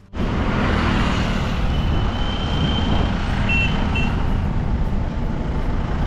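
Highway traffic noise with a heavy low rumble, cutting in suddenly. Midway a thin high tone sounds for about a second and a half, then two short beeps.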